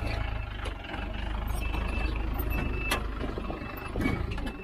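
A motor vehicle's engine runs steadily, and from about a second and a half in a short high beep repeats about once a second.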